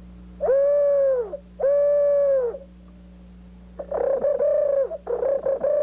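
Bamboo flute sounding four hooting notes on the same pitch, each about a second long. The first two are held steady and sag at the end, and the last two have a fluttering warble.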